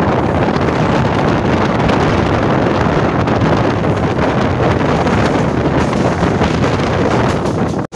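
Steady wind buffeting the microphone, held out of the open door of a moving Mumbai suburban local train, over the train's running noise.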